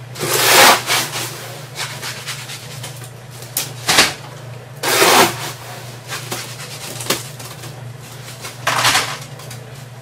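A plastic scoop cut from a one-gallon jug scraping wet concrete out of a wheelbarrow, three scoops a few seconds apart, with a sharp knock about four seconds in, over a steady low hum.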